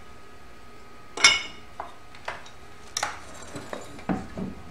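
Painted metal printer-bed wing pieces and printer parts being set down and handled on a wooden workbench: one sharp ringing clank about a second in, followed by several lighter knocks and clicks.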